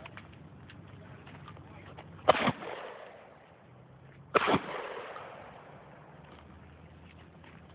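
Two gunshots from a long gun about two seconds apart, each echoing off the range and dying away over about a second.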